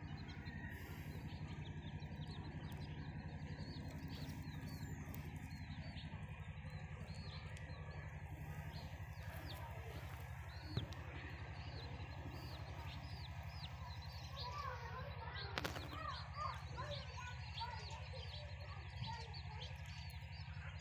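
A brood of baby chicks peeping constantly: many quick, high chirps overlapping without a break. A steady low hum runs underneath, and about two-thirds of the way in, lower-pitched chirps join the high peeps.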